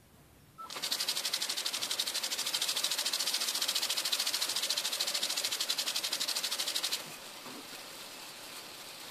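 Water spraying from a hose sprinkler: a loud hiss with a fast, even pulsing that starts just under a second in. About seven seconds in it drops abruptly to a softer hiss.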